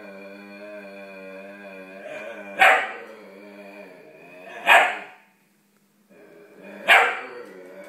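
Alaskan Klee Kai dogs squabbling over a bone: a long, steady growl, broken by three sharp barks about two seconds apart, with a brief pause before the last bark.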